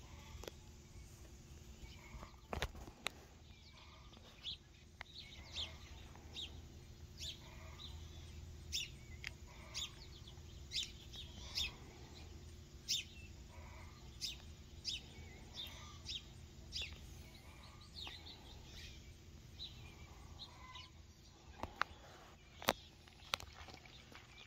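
A bird calling in short, sharp chirps repeated about once a second, over a low steady outdoor rumble. A few sharp clicks stand out near the end.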